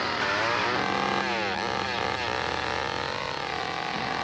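An engine running steadily in the film's soundtrack, its pitch sliding up and down a few times as it revs.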